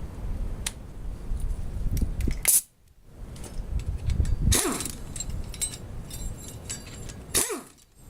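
Metal clinks and clatter of bolts and hand tools as loosened flex plate bolts are taken out, with three sharper metallic knocks and wind rumbling on the microphone. The sound drops out briefly twice.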